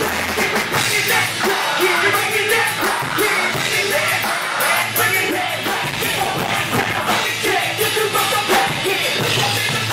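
Live band playing loud music with a drum kit, and a vocalist singing into a microphone over it.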